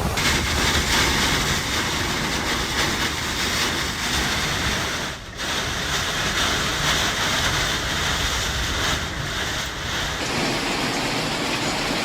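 Steady rushing storm noise of wind and water, with surf or rain. It drops out briefly about five seconds in and changes character near the end.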